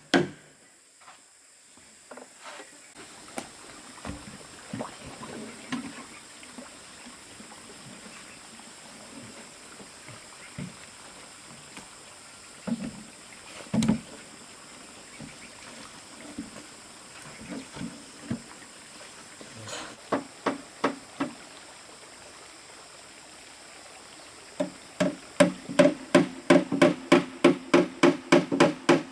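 Scattered knocks and wood handling, then, near the end, a hammer driving nails in fast steady blows, about three a second, each strike ringing.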